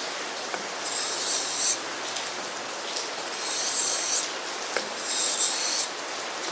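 Becker BK7 knife blade drawn across a sharpening stone in three scraping strokes, each about a second long and spaced a second and a half to two seconds apart.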